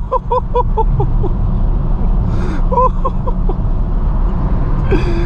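Tuned BMW M6 Gran Coupe's twin-turbo V8, with catless downpipes and a straight-piped exhaust, running under way as heard from inside the cabin. Its sound dips briefly at the start, followed by a quick run of short chirps, which come again about three seconds in.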